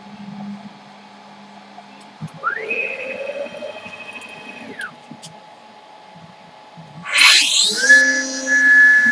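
CNC router's stepper motors whining through a rapid move: the pitch rises, holds high for about two seconds, then falls away. About 7 s in, a motor starts up with a loud rush and settles into a steady high whine, most likely the router spindle spinning up for the next cut on the rotary-axis wooden box call blank.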